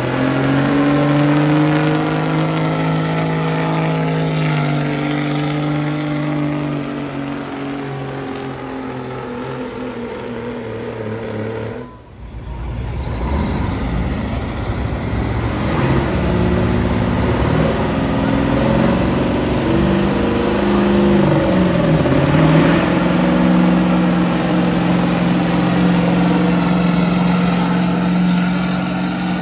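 A diesel semi truck's engine running hard under heavy load as it drags a weight-transfer pulling sled. The note holds steady, breaks off briefly near the middle, then drops and climbs again about three-quarters of the way through, as with a gear change.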